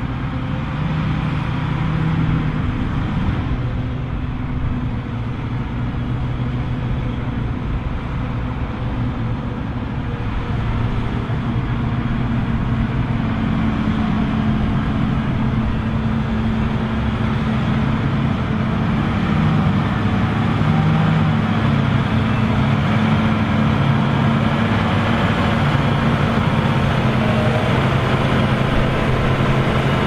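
Diesel engines of John Deere tractors and a self-propelled forage harvester running under load in a steady drone, the engine tones shifting slightly in pitch. The drone grows gradually louder in the second half.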